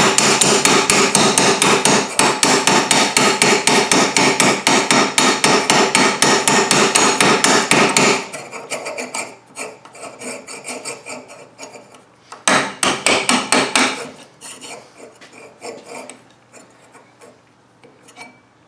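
Ball-peen hammer tapping the steel housing of a rusted, dirt-packed PTO electromagnetic clutch held in a vise, a fast steady run of metal-on-metal blows to knock its halves apart. The tapping stops about eight seconds in, giving way to quieter handling, then comes back briefly for a second short run of blows.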